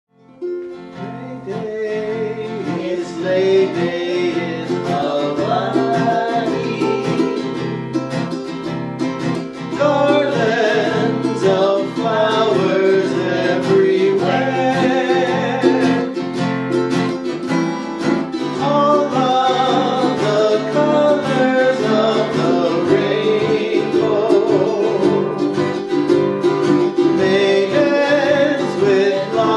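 Ukulele band strumming and singing, fading in at the start.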